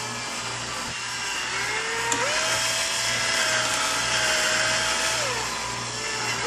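Electric drill spinning a bore brush on a brass cleaning rod inside a rifle chamber, scrubbing out cosmoline. The motor whine climbs to a higher speed about two seconds in, holds steady, drops near the end and climbs again, over a hissing scrub of the brush.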